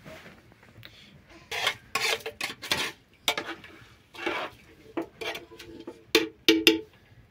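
Kitchenware clattering: a run of short metal clinks and scrapes of utensils against pots or dishes, the last few ringing briefly.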